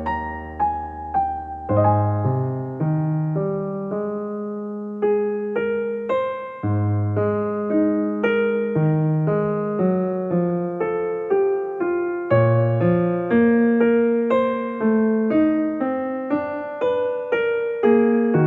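Soft background music: electric piano playing a gentle, flowing run of notes over held bass notes.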